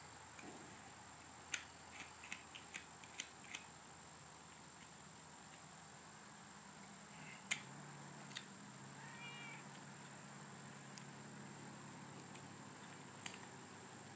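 Faint sharp clicks of a farrier's trimming tools working a horse's hoof, a quick run of them in the first few seconds and a few single ones later, with a cat's faint meow about nine seconds in.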